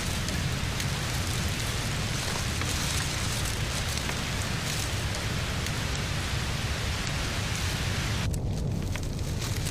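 Steady hiss of rain falling in a forest, with a low rumble underneath; the higher part of the hiss drops away abruptly about eight seconds in.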